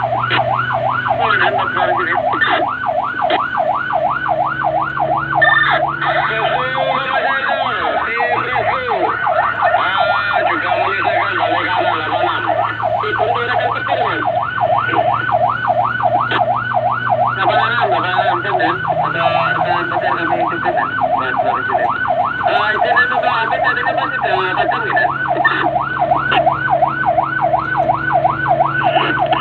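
Fire engine's electronic siren in a rapid yelp, its pitch sweeping up and down several times a second without a break.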